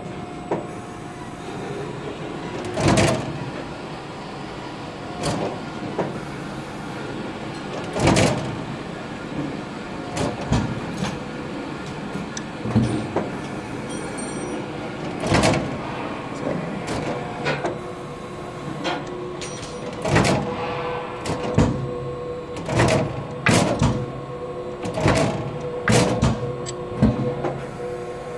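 Press brake cycling: the ram lowers the punch onto a metal plate and lifts it again, with repeated clunks and knocks over a steady machine hum.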